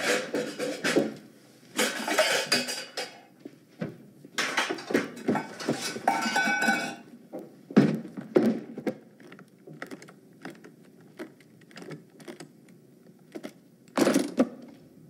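Pots and pans clattering as a lower kitchen cupboard is rummaged, then a briefcase is handled, with a run of small, separate clicks from its locks. Near the end comes a louder clack as the briefcase's latches open.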